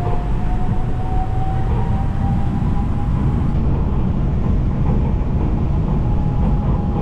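MRT Yellow Line monorail train running along its elevated concrete guideway, heard from inside the car: a steady low rumble with a thin whine held above it.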